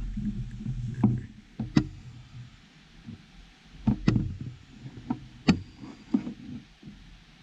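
Irregular sharp knocks and clicks, about seven in all, of small hard parts and tools being handled and set down on a work surface while soldering connectors, over low handling rumble in the first second.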